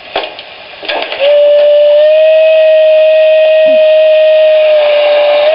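LGB Grizzly Flats garden-railway steam locomotive's sound decoder playing one long steam whistle, starting about a second in and held for about four seconds. A few clicks come before it.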